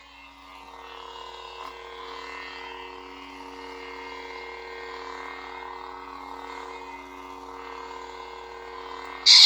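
Lightsaber sound board playing its steady idle hum through the hilt's small speaker, several low tones held under a soft hiss, on a battery that is running low. A brief loud burst cuts in near the end.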